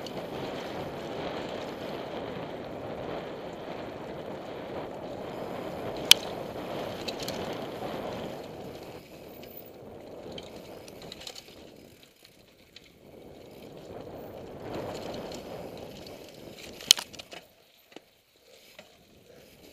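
Downhill mountain bike ridden fast over a dirt trail, heard from the rider's helmet camera: a steady rush of tyre and wind noise with the bike rattling, louder for the first eight seconds or so and dying away briefly near the middle and near the end. Two sharp clicks stand out, one about six seconds in and one near the end.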